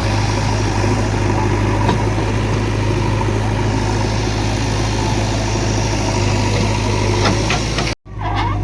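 Heavy diesel engine of earthmoving machinery running steadily at a constant speed, with a strong low hum. It cuts off abruptly near the end.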